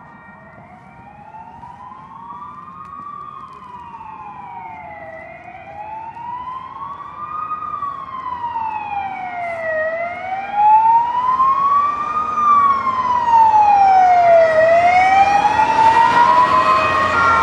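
Ambulance siren sounding a slow wail, its pitch rising and falling about once every four to five seconds. It grows steadily louder as the vehicle approaches, with road noise building near the end.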